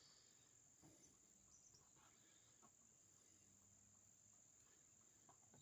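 Near silence, with the faint, steady, high-pitched trill of crickets and a few faint ticks.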